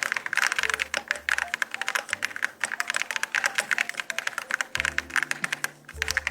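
Fast, continuous typing on a gasket-mounted aluminium mechanical keyboard: rapid, dense key clacks with a brief pause near the end. Background music with low bass notes plays underneath.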